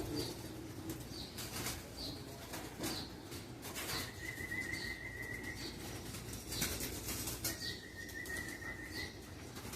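Racing pigeons flapping their wings as they are brought back into the loft. Through it run faint, short high chirps at a regular pace, and twice a steady high tone lasts about a second and a half.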